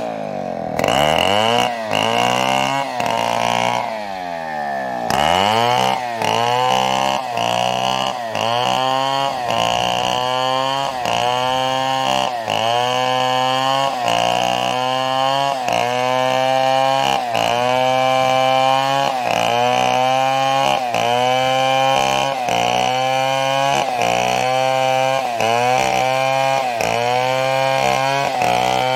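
Chainsaw cutting a fallen coconut trunk into lumber, its engine revving up and easing back over and over, about once every three-quarters of a second. Twice near the start it drops almost to idle and climbs back.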